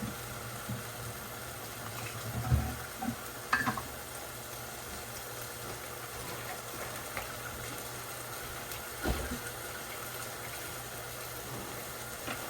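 Food sizzling steadily in a frying pan on the stove, with a few knocks of a utensil or pan, one about two and a half seconds in, one a second later and one near nine seconds.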